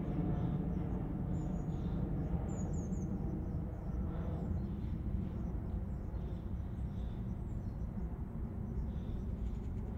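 Steady low rumble of distant highway traffic, easing off a little, with brief high bird chirps scattered through it.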